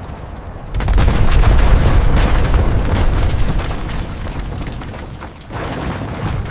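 Building collapse explosion sound effect: a blast that swells about a second in into a deep rumble with debris crashing and crackling, slowly fading, then a second surge near the end.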